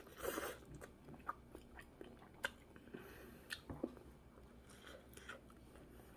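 A person chewing food: faint chewing with small crunches and a few scattered clicks.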